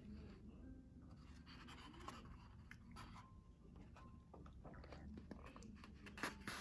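Faint rustling and flicking of paper pages as a book is leafed through by hand, with a couple of sharper ticks a little after six seconds.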